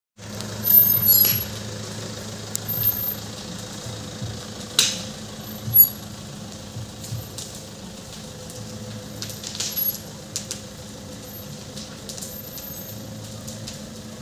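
Parked cars burning: the fire crackles, with sharp cracks and pops breaking out every second or two, the loudest about a second in and near six seconds, over a steady low hum.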